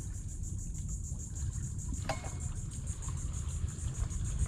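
Insects trilling in a fast, even pulse over a steady low rumble of wind on the microphone, with a single knock about two seconds in.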